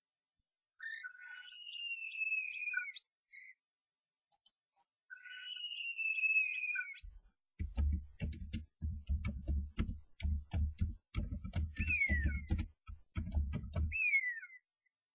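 Common starlings fighting inside a nest box: two drawn-out whistled screeches, each gliding slightly down, then about six seconds of scuffling with rapid thumps and clicks against the box, broken by two short falling calls near the end.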